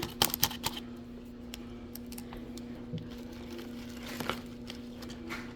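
Plastic food packaging crinkling and rustling in the hands, with a quick run of crackles at the start, then only faint, scattered handling sounds over a steady low hum.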